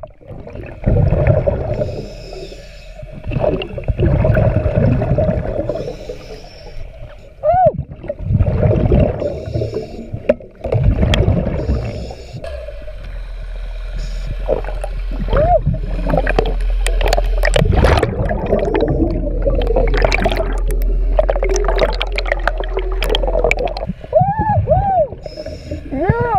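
Scuba breathing heard underwater: rough hissing inhalations through the regulator and bubbling exhalations every few seconds, with short whistle-like squeaks in between. A low steady hum of a boat engine carried through the water comes in about halfway through and fades near the end.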